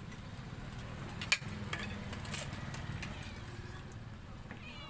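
A few light, sharp clicks and taps of dishes and utensils at a meal table, the loudest about a second in, over a steady low background hum; a brief high call near the end.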